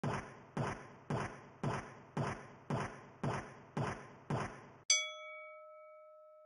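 Intro sound effects: nine sharp hits, evenly spaced about two a second, then one louder bright ping that rings out in a clear, slowly fading tone.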